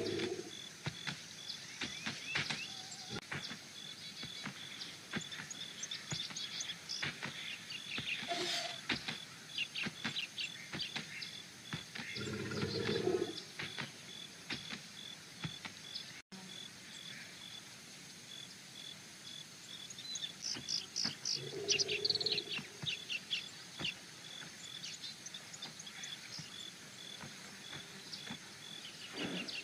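Outdoor nature ambience: many small birds chirping, over a faint steady pulsing tone like insects. A few short, lower animal calls come about a second in, around the middle and again about two-thirds through, and the sound cuts out for an instant around the middle.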